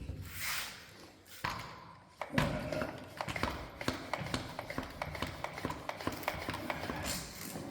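Wet-and-dry sandpaper rubbed by hand over a plastic headlight lens in quick back-and-forth strokes. A few short scrapes come first, then from about two seconds in a fast run of scratchy ticks.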